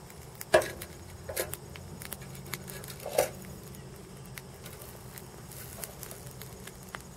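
Polymer Glock magazine burning and melting, with faint crackling and a few sharp pops, the loudest about half a second in and just after three seconds in.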